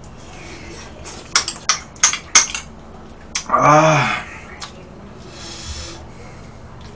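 Metal spoon and utensils clinking against a small bowl: a quick run of four or five sharp clinks about a second and a half in. Then a short grunt from the eater, its pitch rising and falling.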